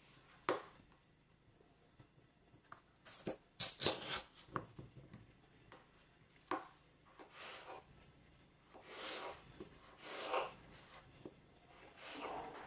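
Kitchen knife cutting raw peeled potatoes on a wooden cutting board: scattered knocks of the blade and potatoes on the board, the loudest cluster about four seconds in, with softer scraping and rubbing sounds later on.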